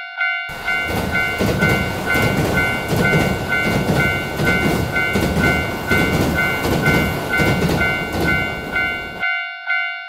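Japanese level-crossing alarm ringing its repeated 'kan-kan' strike, about two and a half a second. A train passes from about half a second in until near the end, its wheels clattering rhythmically over the rail joints. The bell rings on after the train has gone.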